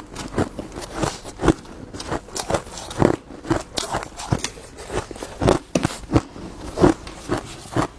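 Ice being bitten and crunched close up, a quick run of sharp irregular crunches about two a second.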